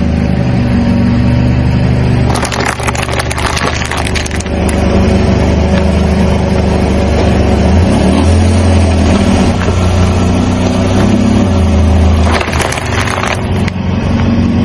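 A car's engine running at low speed close to the road as its tyre rolls over plastic cups. The cups crush with a crackling crunch about two seconds in, and there is another crunch near the end.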